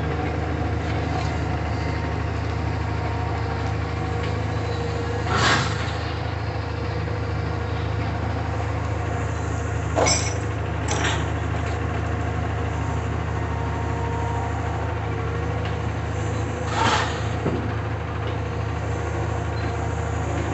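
Diesel engine of a Cat wheeled material handler running steadily, with four loud metallic crashes as scrap is dropped into a steel gondola rail car, two of them a second apart in the middle.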